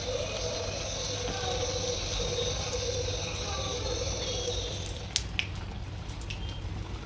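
A samosa deep-frying in hot oil in a kadai, the oil sizzling steadily. About five seconds in the sizzle thins and a couple of sharp clicks sound.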